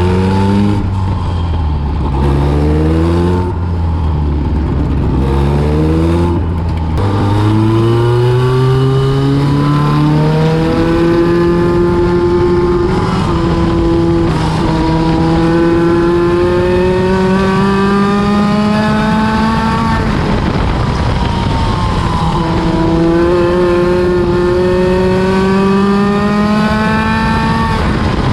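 A midget race car's engine lapping a short oval. The pitch climbs steadily down each straight, then drops sharply as the driver lifts for the corner, about every seven seconds. In the first few seconds several engines overlap at different pitches.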